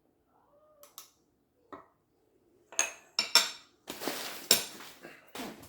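Green depression glass dishes clinking and knocking together as they are handled. A few faint knocks come first, then several sharp, ringing clinks about three seconds in, followed by a longer stretch of rough shuffling and scraping.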